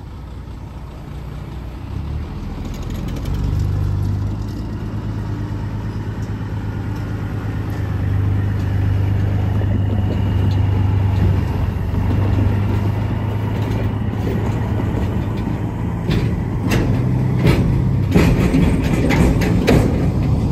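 Diesel locomotive engine running with a steady low drone that grows louder over the first few seconds. About four seconds before the end, a quick run of sharp metallic clicks and clanks sets in, from train wheels and cars passing close by.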